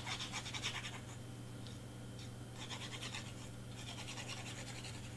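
Tip of a squeeze bottle of glue scratching along cardstock as a line of glue is drawn, in about three short stretches of rapid fine scraping.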